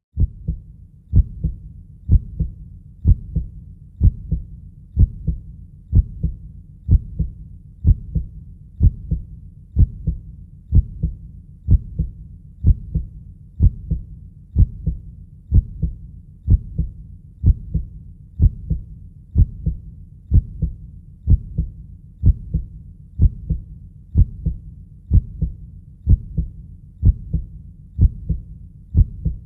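Steady heartbeat, a low double thump (lub-dub) repeating about once a second.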